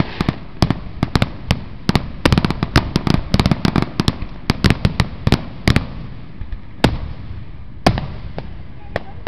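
Aerial fireworks shells bursting: many sharp bangs and cracks in quick succession for about the first six seconds, then thinning to a few single bangs about a second apart.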